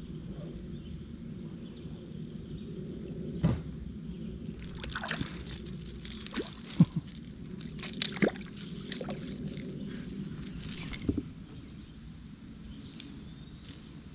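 Water splashing and sloshing in a string of bursts through the middle, with several sharp knocks and clicks among them, over a steady low rumble.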